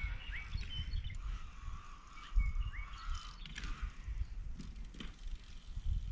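Wind buffeting the microphone in uneven gusts, with birds chirping and calling in the distance a few times.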